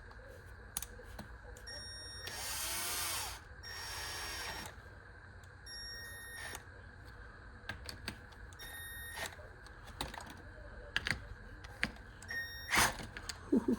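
Hand tools and plastic parts clicking and ticking while a paddle-tire wheel is fitted and its wheel nut tightened on an MJX Hyper Go 16210 RC truck. There are two brief whirring rasps of about a second each near the start, scattered small ticks, and a sharper click near the end.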